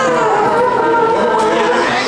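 Barbershop quartet of men's voices singing a cappella in close harmony, holding sustained chords.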